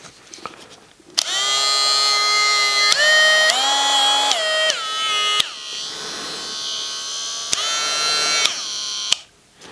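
Dremel rotary tool switched on and run free, a high electric whine that steps up in pitch twice as the speed is raised, then steps down and winds down. It is run up again briefly and switched off near the end.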